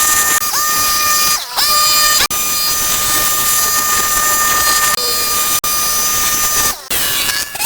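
A machine running with a steady high-pitched whine over a loud hiss. It cuts out briefly twice and dips and slides back up to pitch a few times.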